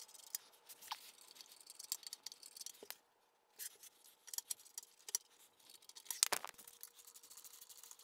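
Light metallic clicks and scrapes of hand work on a fitting at the top of a Bridgeport mill's turret, irregular and scattered, with one louder clack about six seconds in.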